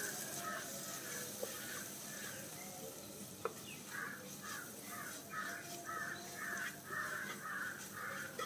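Crows cawing in a run of short calls, faint at first, then louder and quicker, about two caws a second from about four seconds in. Faint stirring in a pan lies underneath.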